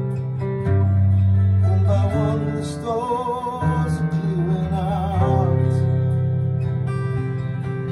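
Music: an acoustic guitar playing a song, with a singing voice carrying a wavering melody over it.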